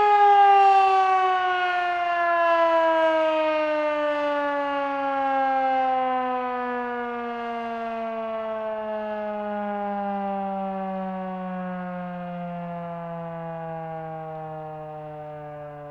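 Federal Sign & Signal Model 3 electromechanical warning siren winding down at the end of its attack signal. It gives one long tone that slides steadily lower in pitch and fades as the rotor slows.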